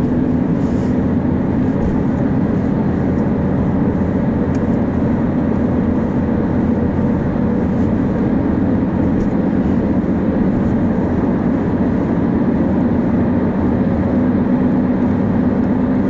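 Steady road and engine noise heard inside a moving car's cabin: an even low drone with a faint steady hum.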